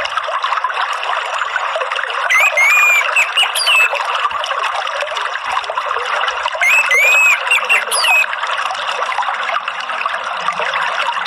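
Steady trickling running water, with an orange-headed thrush singing short whistled phrases over it twice, about two seconds in and again about seven seconds in.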